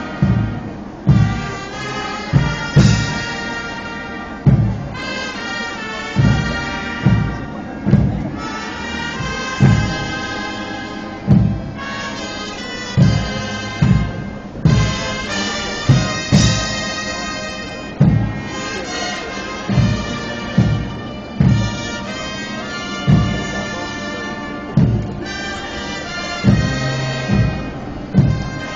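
Marching band playing a slow funeral march: sustained wind instruments over heavy drum beats, roughly one a second.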